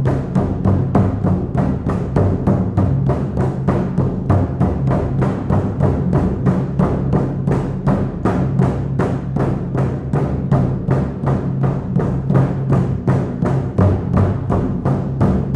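Shamanic hand drum beaten in a steady, unbroken rhythm of about three strikes a second, each stroke giving a deep, booming ring: the repetitive beat used to carry listeners into a shamanic journey.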